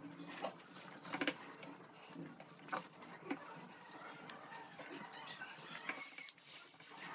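People chewing and munching fried bread pakoras, with scattered small clicks and crackles.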